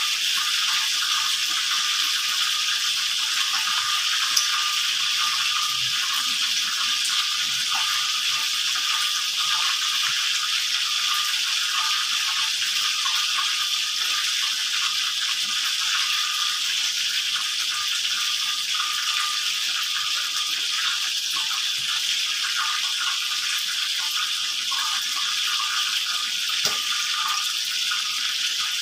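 A steady hiss throughout, with faint scrapes of a plastic spoon mixing a chopped filling in a plastic bowl.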